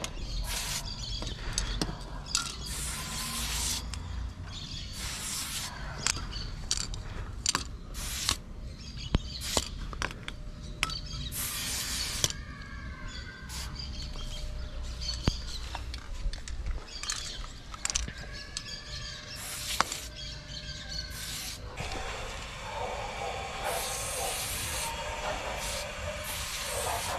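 Hand trigger spray bottle squirting thinned paint in a rapid, irregular series of short hisses, some brief and some about a second long.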